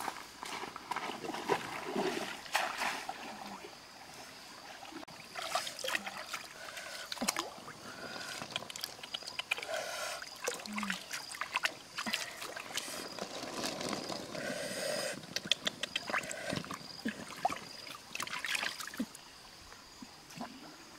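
Stream water splashing and sloshing as eggs are washed by hand in a wicker basket held in the water, with scattered sharp clicks and knocks.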